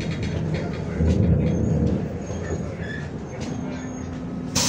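Cabin of a MAZ-105 city bus with its engine running as a steady low hum and small interior squeaks and rattles. About four and a half seconds in, a sudden loud hiss of compressed air starts.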